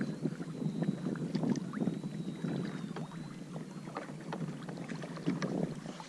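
Water sloshing and splashing against the side of a kayak as a caught fish is held and moved in the water alongside, with many small clicks and knocks of handling.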